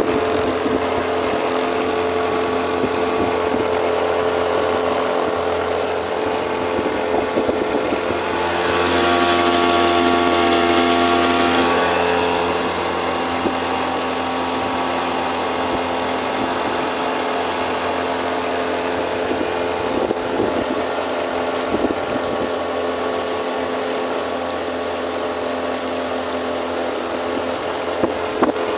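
5 hp Tohatsu outboard motor running steadily with the boat under way, louder and hissier for a few seconds about nine seconds in.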